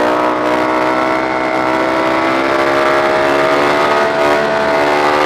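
Suzuki DR-Z400 supermoto's single-cylinder engine pulling steadily under way, its pitch rising slowly as the bike gains speed, with wind rush over it.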